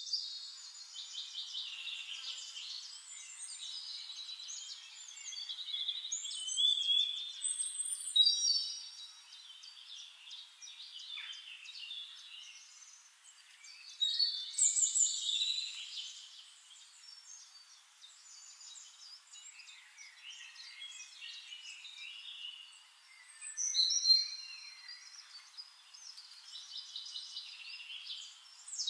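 Several songbirds singing at once: overlapping high chirps, quick trills and whistles, with louder phrases about a quarter, half and four-fifths of the way through.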